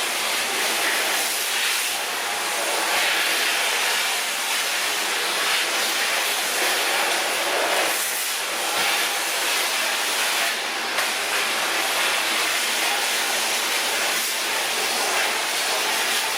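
Shark NZ801UK vacuum cleaner running in powered lift-away mode: a steady rush of motor and suction airflow that swells and dips slightly as it is worked.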